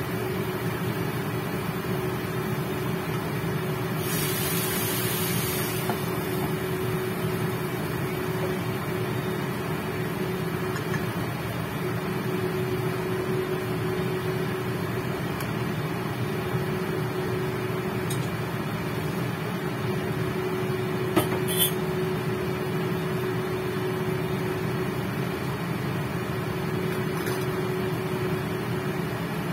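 A portable induction cooker runs with a steady hum and a constant low tone while a covered wok cooks on it. There is a brief hiss about four seconds in, and a couple of sharp clicks about three quarters of the way through.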